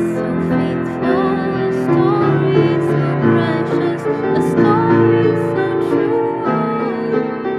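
Soft, tender piano-led music from a gospel song: a melody line gliding over sustained chords.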